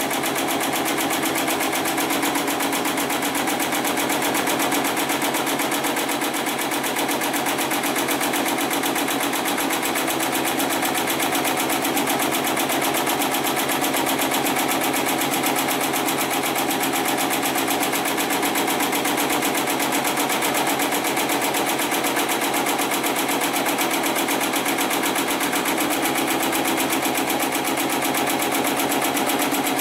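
Hightex 75008 heavy-duty programmable pattern sewing machine running steadily, rapidly stitching through several stacked plies of synthetic webbing.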